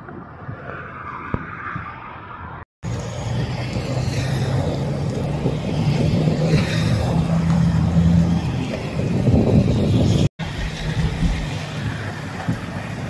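Heavy rain pouring onto wet pavement and puddles, over the steady low hum of a running vehicle engine. The sound cuts off abruptly twice, about three seconds in and again near ten seconds, and is loudest in the middle stretch.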